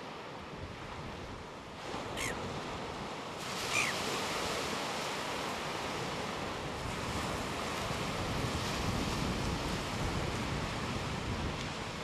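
Surf washing on the shore with wind on the microphone, a steady rushing. Two brief high falling whistles come through about two and four seconds in.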